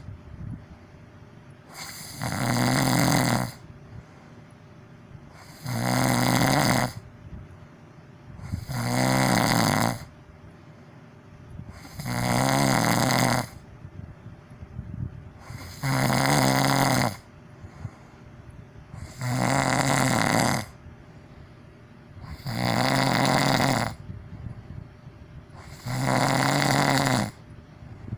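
A person snoring loudly in a steady rhythm: about eight long, low-pitched snores, one every three and a half seconds, with quieter gaps between.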